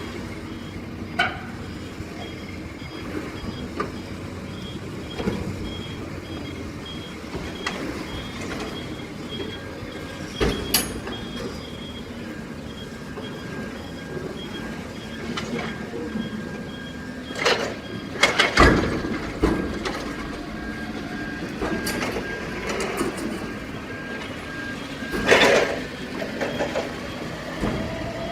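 Heavy machinery running steadily, with a rapid high beeping like a backup alarm through the first half and several loud bangs and clanks, the heaviest cluster about two-thirds of the way through.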